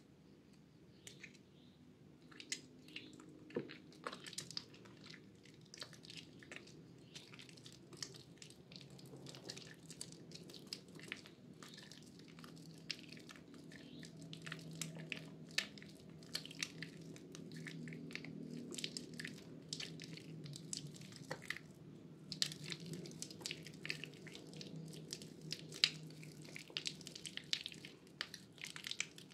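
A soaked, softened bar of Purbasari red antibacterial soap being squeezed and crushed in wet hands, crumbling into mushy lumps with many small wet crackles and squishes. The crackling grows denser and louder toward the end.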